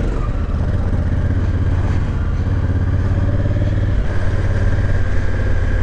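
Motorcycle engine running steadily under way, heard from on the bike with wind and road noise over it. A thin high whine joins about four seconds in.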